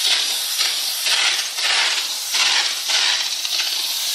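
Steam cleaner jetting steam through a narrow grout nozzle onto floor tile grout: a loud, continuous hiss that swells and eases in quick waves.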